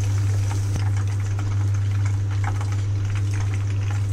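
Chicken pakodas frying in hot oil in a non-stick pan, a light sizzle with scattered crackles as they are lifted out with a slotted steel spatula, over a steady low hum.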